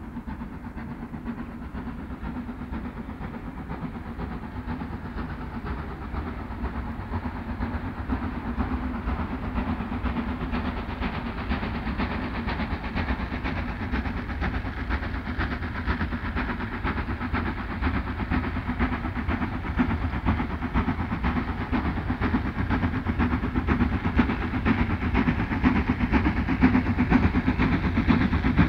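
Steam-hauled train running on the rails: a steady, dense rumble that grows gradually louder.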